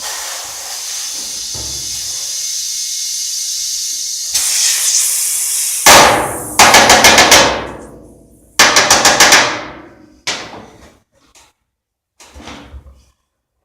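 Compressed air hissing steadily, then a pneumatic air tool hammering in several short bursts of rapid strikes, working a tyre off a lawnmower wheel rim.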